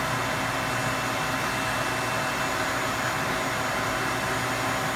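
Vacuum cleaner running steadily as its nozzle is worked into a dirty air-handler evaporator coil, sucking out cat hair and grime: a constant rushing noise over a motor hum.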